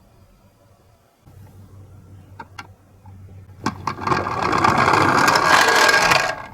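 A few sharp clicks as a toy ambulance minicar is handled, then the little car rolling down a slope, its wheels running loudly for about two and a half seconds before stopping abruptly.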